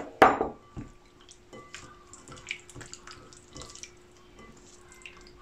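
Hands squishing and turning raw chicken pieces in a thick yogurt-and-spice tandoori marinade in a ceramic bowl: soft wet squelches and small irregular clicks, with one sharp knock just after the start.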